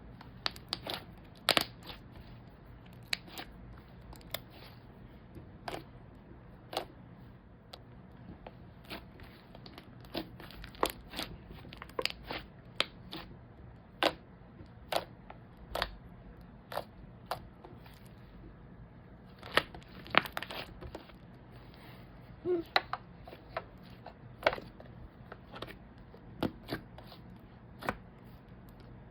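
Slime being squeezed, stretched and poked by hand, giving off irregular sticky clicks and small pops, a few each second.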